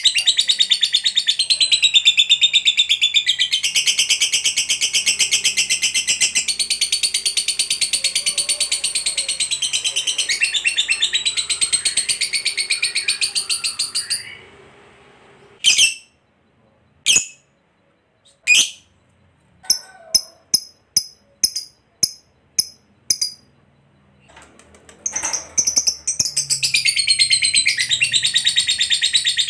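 A caged lovebird giving its long, rapid, high-pitched chattering trill, the 'ngekek panjang' that keepers prize, unbroken for about fourteen seconds. It then stops, gives three single sharp calls and a quick run of short chips, and launches into the long chatter again about twenty-five seconds in.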